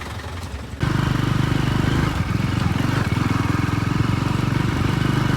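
KTM motorcycle engine running while riding, a dense, rapidly pulsing low drone that comes in suddenly about a second in and holds steady.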